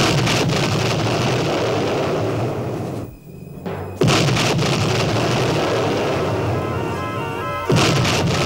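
Three heavy explosion booms, one at the start, one about four seconds in and one near the end, each dying away slowly, over background music: sound effects for limpet mines blowing up the ships.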